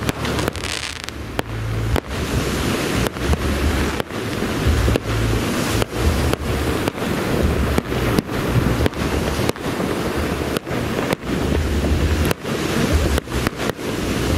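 A fireworks display going off in quick succession, a dense run of bursts and crackle, under heavy wind buffeting on the microphone.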